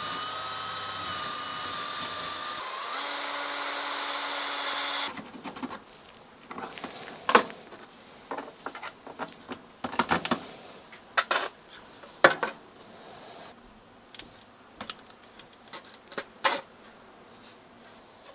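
Cordless drill spinning up and drilling through a hollow 3D-printed plastic frame for about five seconds, its sound changing partway through before it stops abruptly. Then scattered small clicks and taps as a stainless steel bolt is handled and pushed into the plastic frame.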